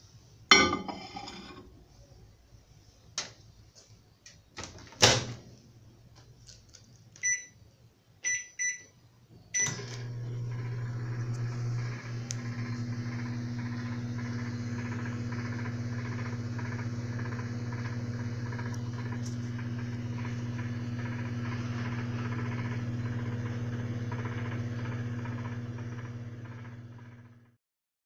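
Daewoo microwave oven loaded and started: a clatter as a mug is set on the turntable, a couple of thuds, four keypad beeps, then the oven running with a steady mains hum for about 17 seconds before it cuts off. With its new mica waveguide cover fitted it runs with no crackle or pops of arcing.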